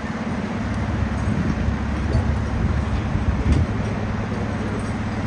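Fire truck's diesel engine idling steadily, an even low hum.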